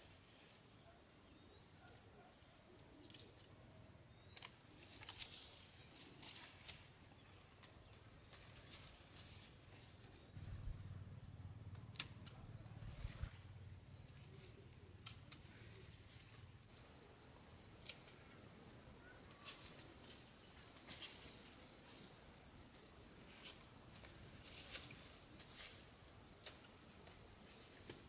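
Faint outdoor ambience: a steady high insect whine, joined partway through by a rapid pulsing insect trill, with scattered light clicks and rustles and a brief low rumble near the middle.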